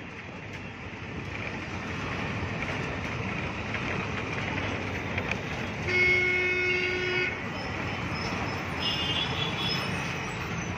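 Steady road traffic noise that grows a little louder, with one vehicle horn sounded as a single held tone for about a second and a half around six seconds in, the loudest sound. Fainter high-pitched tones follow near the end.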